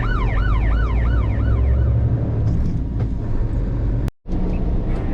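Steady low rumble of a large truck's engine and cab. A warbling, siren-like tone rises and falls about three times a second at the start, fading out within two seconds. The sound cuts out completely for a moment about four seconds in.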